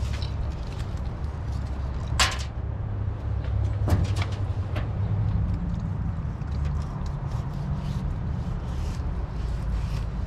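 A steady low rumble runs under a few sharp knocks and clacks, the loudest about two and four seconds in, as a fish is handled and cut with a fillet knife on a stainless steel table.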